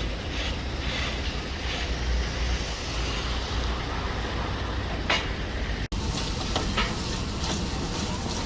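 Steady low rumble of background noise with a few light clinks and knocks, cut by a brief dropout about six seconds in.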